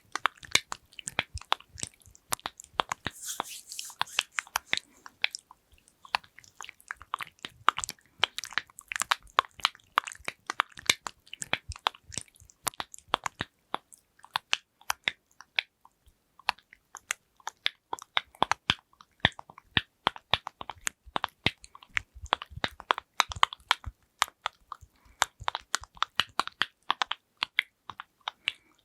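Fast, crisp tapping and clicking of fingernails on plastic lids and containers, dozens of taps in quick runs, thinning out briefly about halfway through.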